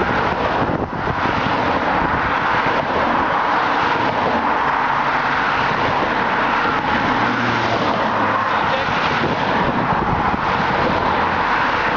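A convoy of team support cars driving past one after another, giving a steady, unbroken noise of engines and tyres on the road.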